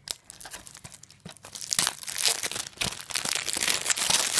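Plastic shrink-wrap being picked open and peeled off a DVD case, crinkling and tearing: a few scattered ticks at first, then dense, loud crackling from about a second and a half in.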